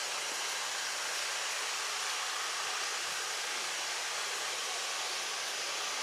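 Steady, even hiss of outdoor background noise that does not change throughout.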